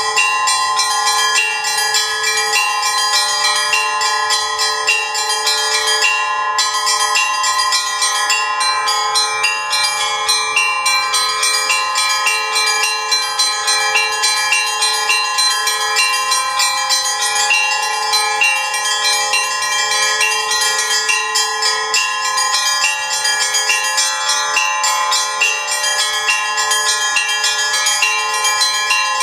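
Russian Orthodox church bells rung in a continuous peal: small bells struck rapidly over the longer ringing tones of larger bells, with no pause.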